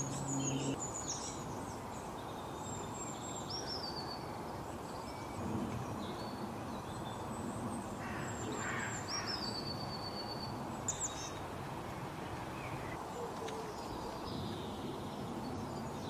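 Small songbirds chirping and calling: scattered short high whistles, trills and falling notes over a steady outdoor hiss, with one brief sharp sound about eleven seconds in.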